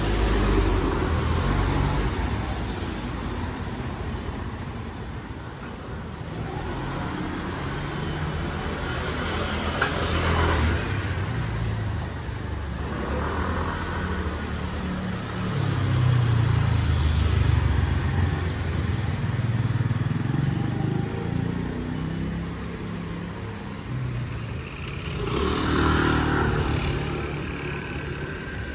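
Street traffic of cars and motor scooters passing one after another, each engine swelling and fading, with a steady street hum beneath.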